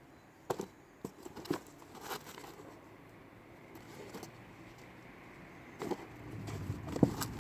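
Kittens playing in and around a cardboard box: irregular knocks, bumps and scratches on the cardboard, the loudest thump near the end.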